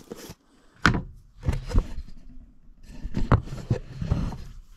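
Plastic tub of wood wax being handled: a sharp knock about a second in, two more soon after, and a cluster of clunks near the end.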